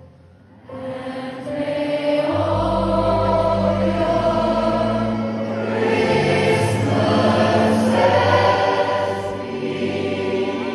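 Large gospel choir singing with instrumental accompaniment. The choir comes back in about a second in after a short lull, and low sustained accompaniment notes join about two seconds in.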